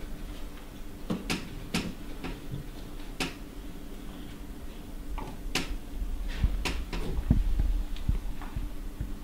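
Scattered sharp clicks and knocks of wood being handled at a wooden door, about half a dozen spread out, with a few low thumps about six to seven seconds in.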